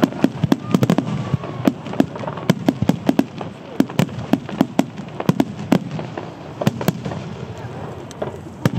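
Starmine fireworks barrage: many aerial shells bursting in quick succession, several sharp bangs a second, with the bangs thinning out over the last few seconds.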